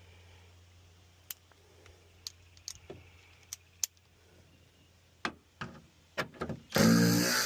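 Scattered light clicks and taps of hardware and parts being handled, then a power tool starts suddenly near the end and runs loudly.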